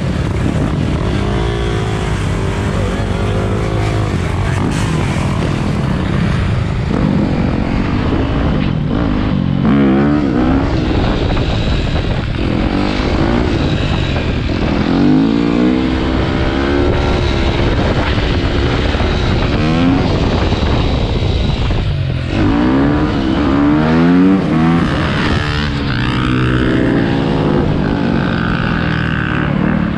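Dirt bike engine heard from the rider's own bike while riding, its pitch climbing again and again as the throttle is opened and the bike shifts up, over a constant rush of wind on the microphone.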